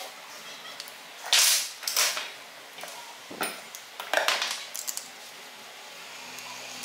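Allen key and bolt clinking and scraping on a welding cable's lug terminal as the bolt is worked by hand. A handful of short metallic clicks and rattles, the loudest two about a second and a half and two seconds in, with further ones near the middle.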